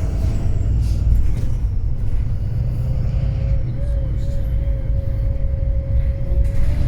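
Wright Pulsar 2 bus with a Cummins ISB diesel engine running under way, giving a steady low rumble. A thin steady whine joins about three seconds in.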